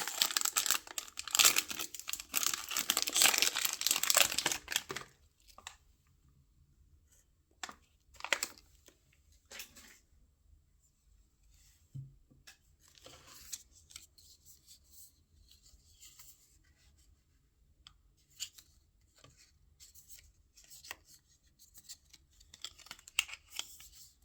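Blind box packaging being torn and crinkled open, loud and dense for about the first five seconds, then quiet with scattered short rustles and small taps.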